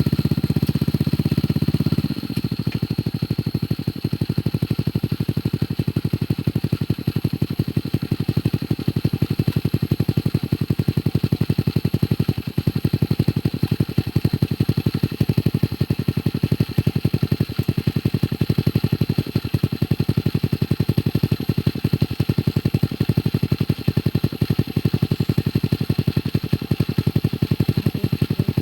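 Motorcycle engine driving a homemade log winch, running steadily. It runs louder for about the first two seconds, then settles to a slightly lower, even speed.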